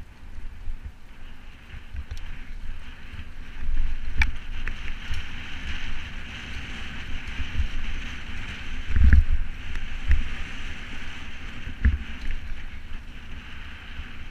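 Wind and rumble on a mountain bike's onboard camera microphone while riding a bumpy dirt trail, with a steady rushing hiss and several sharp knocks and clatters from the bike hitting bumps, the loudest a little past the middle.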